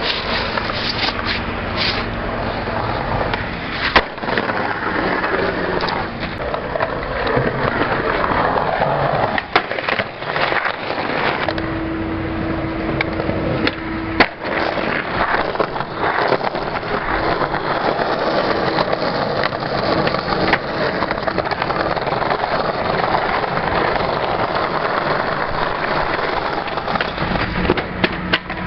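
Skateboard wheels rolling over pavement and brick, with a number of sharp clacks from the board popping and landing; the loudest come about four seconds in and again near the middle.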